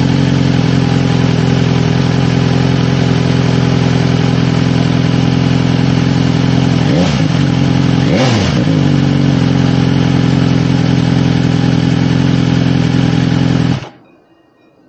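2022 BMW S1000R inline-four engine, warmed up, idling through an aftermarket SC Project exhaust. It is blipped twice in quick succession about halfway through, the pitch rising and falling each time. The sound cuts off suddenly near the end.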